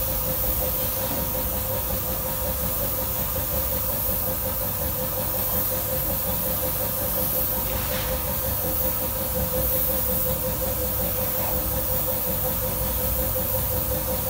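Air compressor running steadily with a constant hum, under the hiss of compressed air from a paint spray gun being sprayed.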